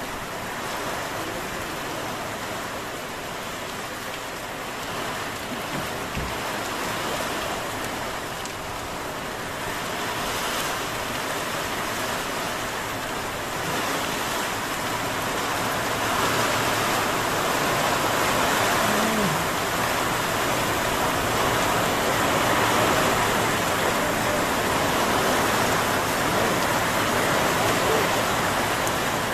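Heavy rain pouring steadily as an even, dense hiss, growing louder about halfway through.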